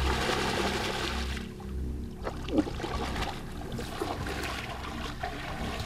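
Splashing water in uneven bursts, as a bull moose wades through shallow water, over low background music.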